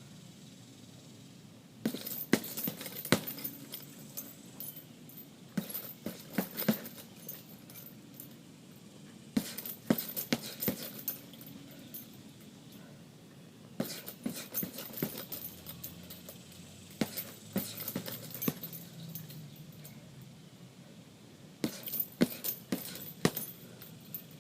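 Boxing gloves striking a punching bag in quick combinations: six bursts of several punches each, a few seconds apart, with a light metallic jingle on the hits.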